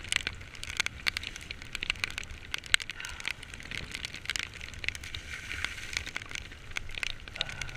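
Heavy rain, heard as many irregular sharp ticks of drops landing close by, over a steady low rumble.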